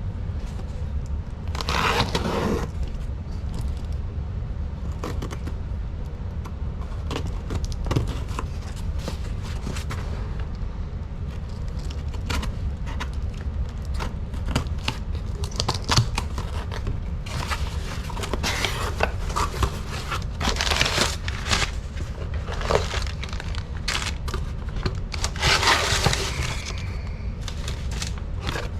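Handling noises on a workbench: scattered clicks, scrapes and crinkling as parts and packaging are moved about, with a few louder rustling bursts, over a steady low hum.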